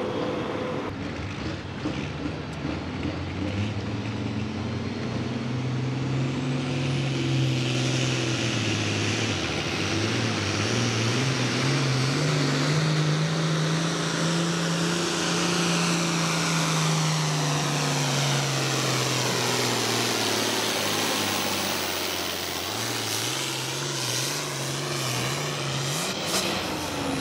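Turbocharged diesel engine of an Altered Farm pulling tractor (466 cubic inch, A pump) running hard during a pull. The engine note climbs and drops several times, highest about midway, over a heavy hiss.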